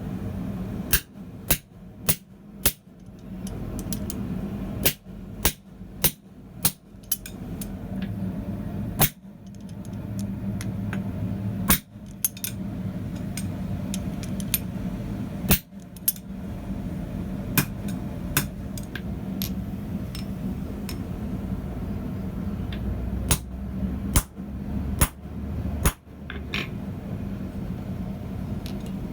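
Blacksmith's hammer striking hot steel on an anvil in scattered single blows and short clusters, with pauses between, over a steady low hum.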